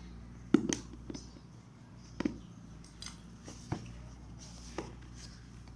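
Hands handling a phone's cardboard retail box as it is opened: a handful of sharp knocks and taps, the loudest a little over half a second in, over a faint steady hum.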